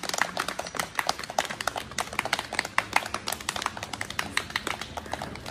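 A small crowd clapping: a dense, irregular patter of many hand claps that thins out near the end.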